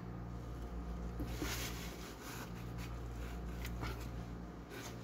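Steady low hum of a busy workshop, with scattered faint clicks and taps from hand work on the engine.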